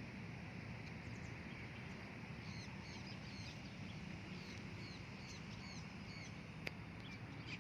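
Birds chirping faintly in short, high calls that come in small clusters, over a steady low background noise. A single sharp click sounds near the end.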